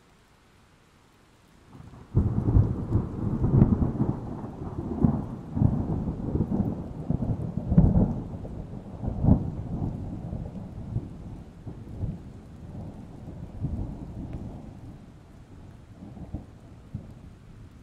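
A thunderclap breaks about two seconds in, then rolls on as a long, low rumble of thunder with several sharper cracks, slowly fading. Rain falls faintly beneath it.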